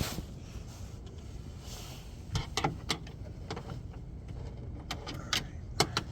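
Several sharp clicks and light knocks from trim parts being handled during the fit-up, a cluster of them a little over two seconds in and a few more near the end, over a steady low hum.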